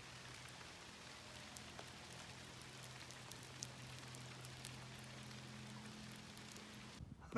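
Faint steady outdoor ambience: a low hum under a light patter of small ticks. It breaks off abruptly near the end.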